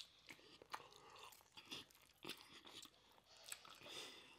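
Faint close-up chewing of braised oxtail and rice: a scatter of small, irregular mouth clicks.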